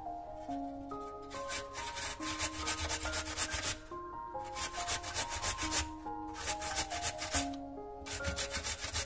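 Raw potato grated on a stainless-steel box grater: quick, rhythmic rasping strokes in four bursts with short pauses between them. Soft background music plays underneath.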